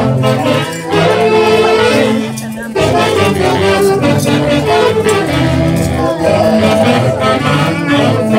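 Live band of saxophones and drums playing chunguinos dance music, with held brass-like tones over a steady beat; the music drops back briefly about two and a half seconds in.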